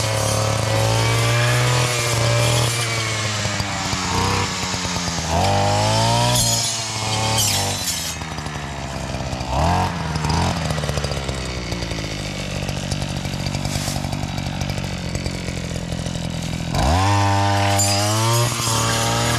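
Two-stroke Husqvarna brushcutter fitted with a metal cutting disc, clearing dense brush. The engine revs up and down in several rising sweeps, runs at a lower speed for several seconds in the middle, then revs up sharply near the end.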